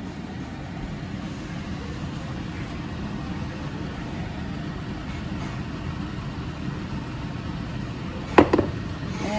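A steady low background rumble. Near the end, two sharp clinks close together as wooden chopsticks knock against a ceramic bowl.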